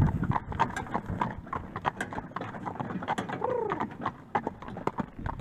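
Hooves of a pair of Friesian horses clip-clopping on asphalt, drawing a carriage. A short rising-and-falling call is heard a little past the middle.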